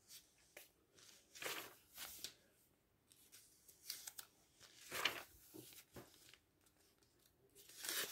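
Pages of a glossy printed catalogue being turned and smoothed by hand: several short, faint paper swishes and rustles with quiet gaps between them.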